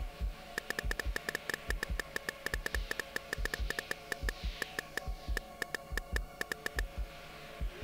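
Smartphone keyboard clicks as a thumb types a text message: quick runs of taps with a short pause about halfway. Under them run low double thumps like a heartbeat and a steady hum.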